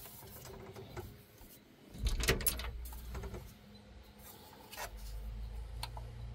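Metal-cased car stereo head unit being handled and shifted about on its wiring harness: rubbing, scraping and small clicks, loudest in a cluster of knocks and scrapes about two seconds in, with a low rumble under the second half.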